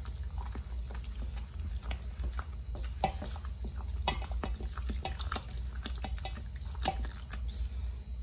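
Wooden spoon stirring a water-and-oil mixture into flour in a stainless steel bowl: irregular wet clicks and taps as the spoon works the sticky dough, with a thin stream of liquid trickling in. A low steady hum runs underneath.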